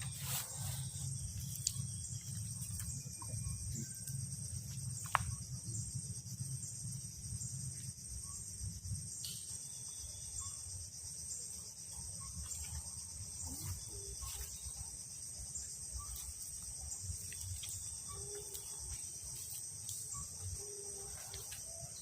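A chorus of insects keeps up a steady high-pitched buzz with a faint regular pulse. Under it runs a low rumble, with a few sharp clicks scattered through.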